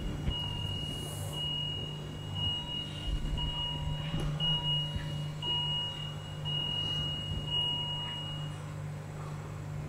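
Intensive care unit recording played over loudspeakers: a medical equipment alarm beeps at a high pitch about once a second over a steady low hum. The beeping stops near the end.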